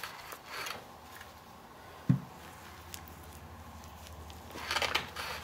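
Gloved finger working grease into a snowmobile idler wheel's sealed bearing and turning it: soft squishing and rubbing, twice, with a dull thump about two seconds in.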